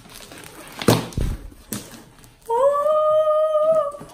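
Wet slime being stretched and slapped, with sharp clicks and a thud. Then a girl gives one long, held 'ooh' that rises at the start and lasts about a second and a half.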